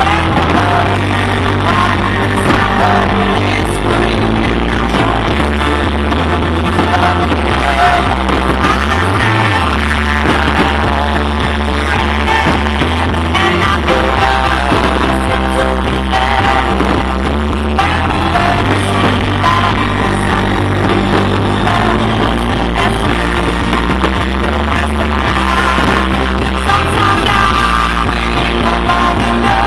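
Loud music with singing over deep bass notes held for several seconds at a time.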